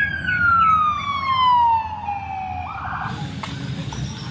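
A toy ambulance's siren: one long wail that falls steadily in pitch and dies away about two and a half seconds in.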